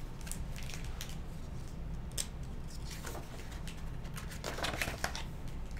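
Faint rustling and light clicks of a paperback picture book's pages being handled and turned, a little fuller about four and a half seconds in, over a steady low background hum.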